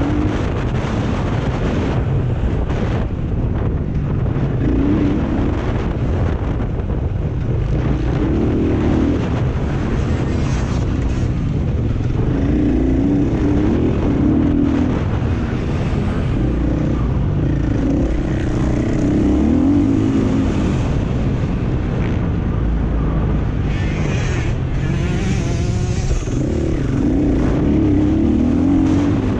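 Enduro motorcycle engine running hard as it is ridden, its revs rising and falling in repeated surges over a steady low rumble.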